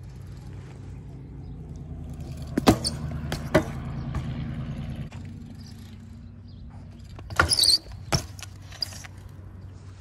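BMX bike being ridden: tyres rolling with a steady low hum that swells and then eases off, broken by a few sharp knocks and a short scrape, the sounds of the bike's landings and tricks.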